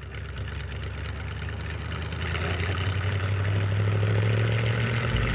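A car engine running at a steady low pitch, growing steadily louder as the car draws closer.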